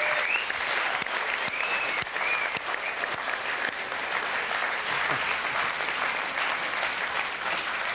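Studio audience applauding steadily at the end of a live band's song.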